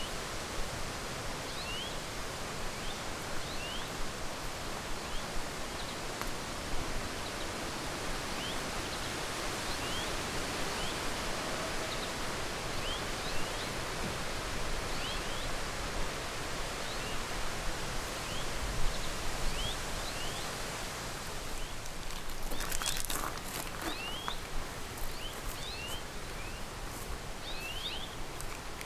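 Steady rushing noise of wind and rustling outdoors, with a small bird giving short rising chirps again and again. About three-quarters of the way through, a run of sharp crackling clicks comes in.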